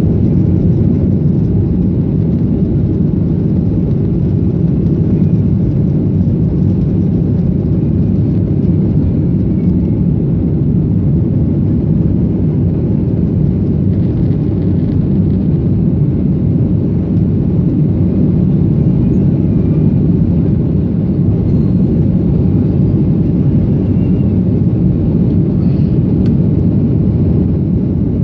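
Airliner's jet engines running during take-off: a steady low rumble that holds level throughout.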